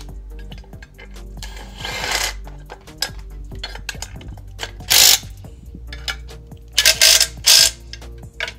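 Hand-tool work on an engine during assembly: rapid ratchet clicks and metal clinks, with short loud noisy bursts about five seconds in and twice around seven seconds in, over background music.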